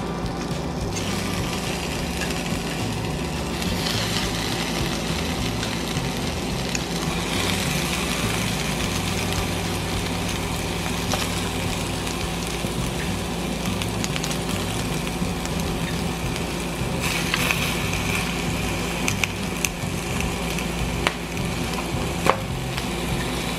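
Pork hock pieces sizzling in a frying pan, the sizzle swelling each time more pieces are laid in with metal tongs. A few sharp clicks of the tongs near the end.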